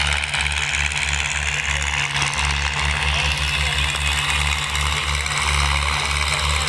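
Diesel tractor engines running steadily under load as the tractors pull tillage implements through a wet field, with a low pulsing rumble and a constant hiss of rain.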